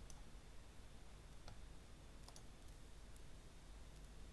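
Faint computer mouse button clicks: a handful of scattered single clicks and one quick double click about two seconds in, over near-silent room tone.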